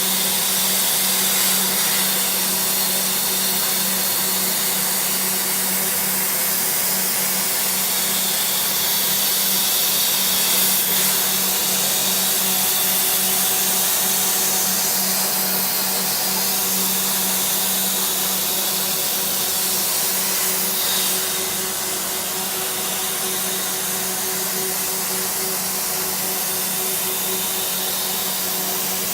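CNC metal-cutting machine at work, giving a steady, even hiss with a constant low hum underneath.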